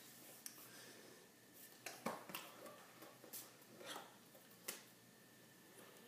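Scattered soft clicks and slaps of hands meeting and brushing while signing in sign language, about six in all, over faint room tone.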